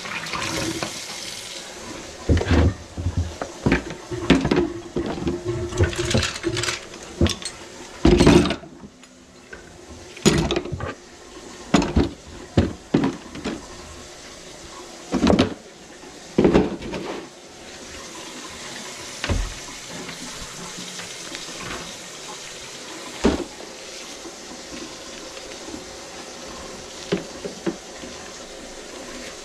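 Tap water running into a stainless steel sink, followed by a run of irregular knocks and clanks as drain-cleaning equipment is handled, a few more scattered knocks later on.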